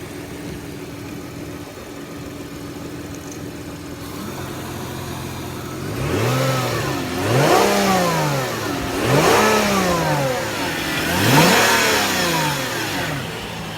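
Hyundai car engine idling steadily, then revved three times, each rev rising and falling back, starting about six seconds in. The owner judges it sounds good.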